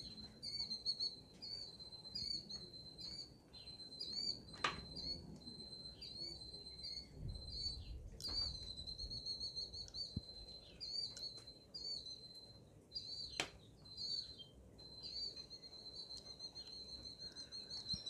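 Killdeer calling: short, high, up-and-down calls repeated every half second or so. A few sharp clicks come now and then.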